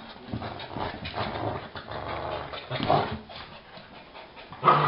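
A dog growling in play during a tug-of-war over a plush toy: a low, rough growl through the first three seconds. A louder bark starts near the end.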